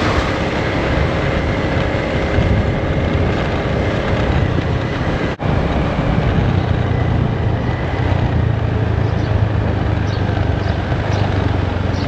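Motor scooter being ridden along a road: a steady low engine hum under a rushing noise, with a split-second dropout about five seconds in.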